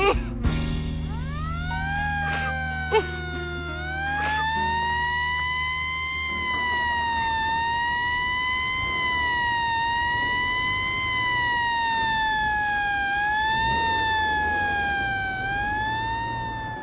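A siren wailing: its tone rises in about a second in, then swings slowly and smoothly up and down without a break. A low steady hum sits under it for the first few seconds, and there is a single knock early on.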